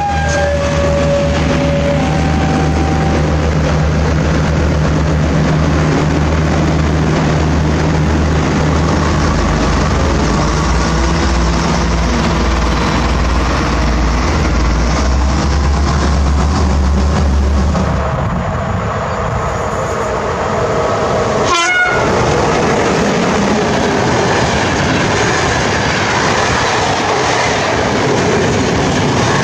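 A train passing close by: a steady low engine rumble for the first half, then the even rolling noise of the cars on the rails. Short tones sound near the start, and a sharp clack comes about 21 seconds in.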